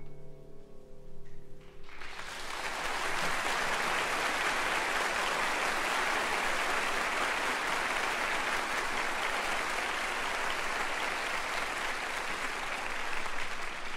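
The last held chord of the music dies away, and about two seconds in an audience breaks into applause that holds steady to the end.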